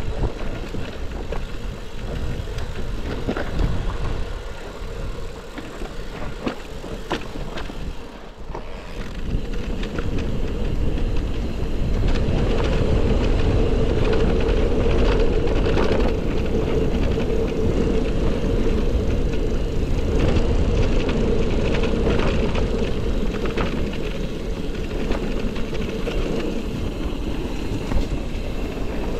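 Electric mountain bike ridden over rough trail: tyre noise and wind rumbling on the microphone, with many short rattles and knocks from the bike. The sound grows louder and steadier about twelve seconds in.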